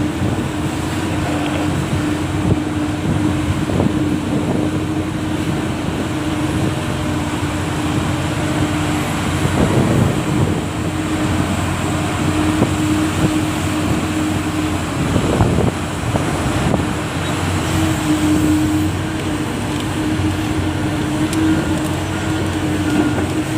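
Heavy mining machinery's diesel engines running steadily with a constant hum, swelling louder briefly about ten and fifteen seconds in.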